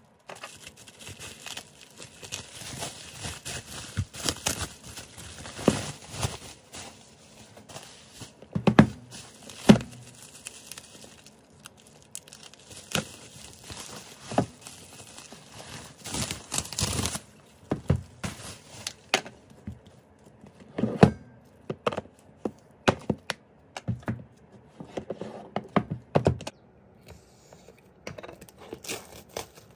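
Plastic bubble wrap crinkling, crackling and tearing as it is pulled off packages, with several dull thuds of boxes set down on the desk.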